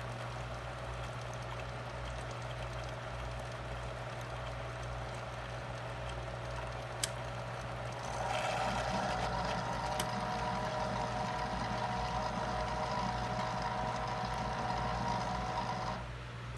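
Single-serve capsule coffee maker brewing: its pump and heater run with a steady hum, with a sharp click about seven seconds in. About a second later the machine runs louder with a few steady tones, then cuts off abruptly near the end.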